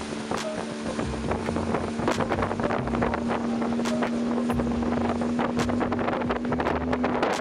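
A 75 hp Mercury outboard runs at a steady pitch, driving an aluminum bass boat on the water. Wind rushes over the microphone, and there are frequent short knocks.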